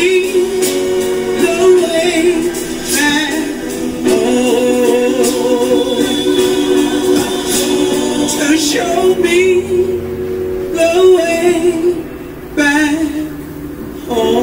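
Soulful gospel-style singing by a female vocalist on a live recording, holding long notes with wide vibrato over sustained backing chords, with a short dip in level about two-thirds of the way through.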